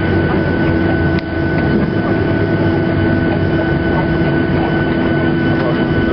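Boeing 737-800 cabin noise while rolling out on the runway after landing: the CFM56 jet engines and runway rumble make a loud steady din with a high steady whine and a lower hum, dipping briefly about a second in.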